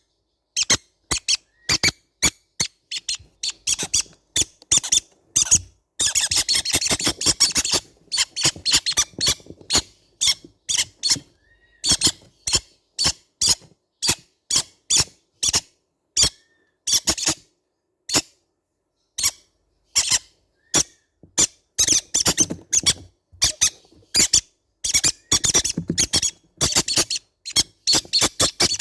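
Baby green-cheeked conures calling: a steady string of short, high, squeaky chirps, two or three a second, with busier stretches of overlapping chirping about a quarter of the way in and again about three quarters in.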